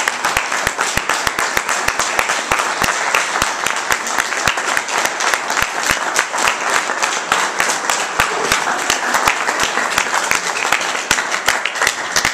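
Audience applauding, with many individual claps standing out sharply throughout.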